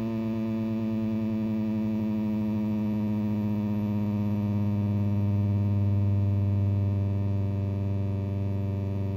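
1949 Philco 50T-1403 television's vertical deflection signal bleeding into its sound: a steady low buzz with many overtones that swells a little toward the middle, heard while the set warms up and its high voltage comes up.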